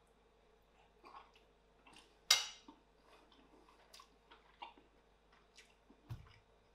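Quiet close-up chewing and wet mouth clicks as a man eats a forkful of soft stewed pork. A single sharp click comes a little over two seconds in, and a short low thump near the end.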